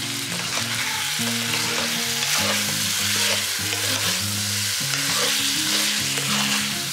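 Chicken curry sizzling in a pan on the flame while a spoon stirs it through, with a steady hiss and the scrape of stirring.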